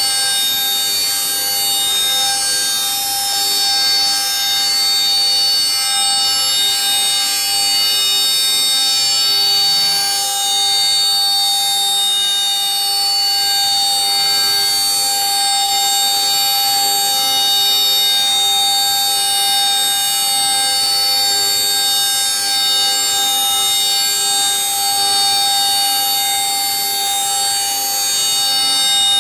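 CNC router spindle running at high speed with its bit cutting through a laminated wooden skateboard deck: a loud, steady, high-pitched whine made of many tones, with no let-up.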